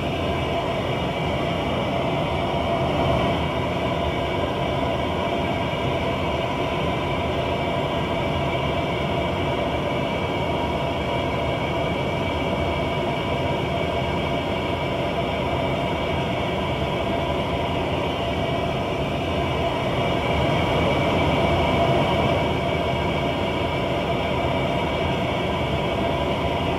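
Jet aircraft engine running steadily: a continuous whine over a low rumble, swelling a little about twenty seconds in.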